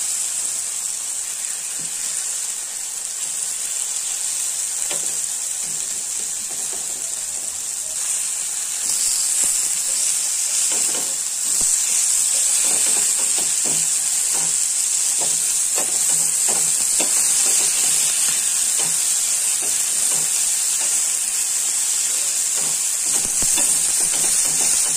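Marinated chicken chops sizzling steadily in oil on a flat tawa griddle. The sizzle grows louder about halfway through, and a spatula scrapes and taps against the griddle as the pieces are turned.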